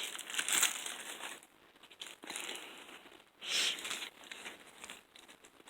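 Plastic toy packaging crinkling in irregular bursts as it is handled and opened, the loudest in the first second and a half and again about three and a half seconds in.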